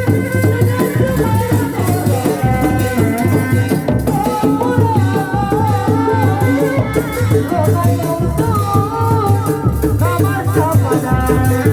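Live Sundanese reak ensemble music: drums beating a steady repeating rhythm under a high, wavering melody line.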